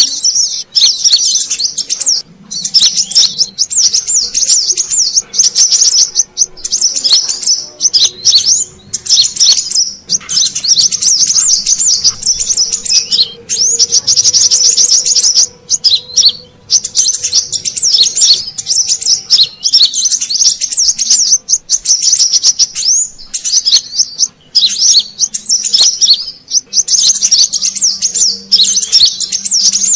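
Brown-throated sunbird (kolibri kelapa) singing: loud, rapid, high-pitched chattering trills in phrases of one to two seconds, broken by short pauses.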